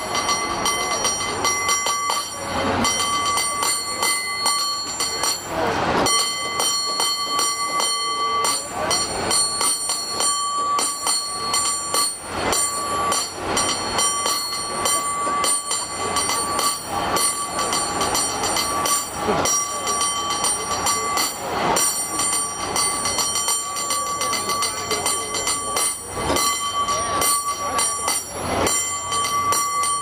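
San Francisco cable car bell rung by its overhead pull cord in fast, shifting rhythms: rapid clapper strikes over a bell that rings on without a break.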